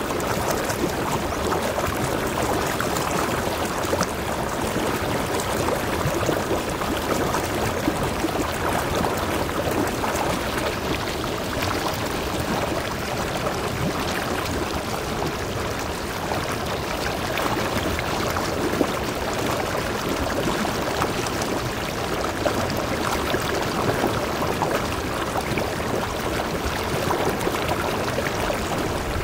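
Stream water pouring over rocks into a pool in a small cascade: a steady rush of water.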